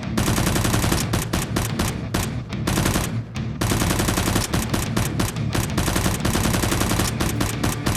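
Rapid automatic gunfire in long bursts, with a short break about three seconds in.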